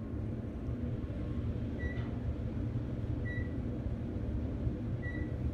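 Otis traction elevator car travelling upward with a steady low hum and rumble, and three short high beeps spaced about a second and a half apart, the car's floor-passing signal.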